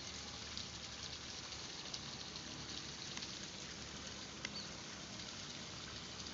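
River water flowing steadily, a low even rush with a few faint small clicks.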